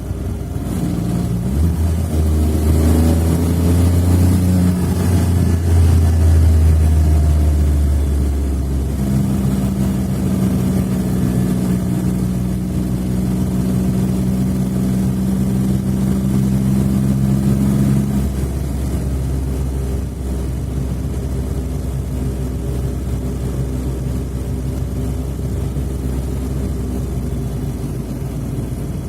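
Smart fortwo 451 engine running steadily, its pitch shifting: a deep drone for the first several seconds, a higher steady note from about nine to eighteen seconds in, then settling to a lower, even running sound.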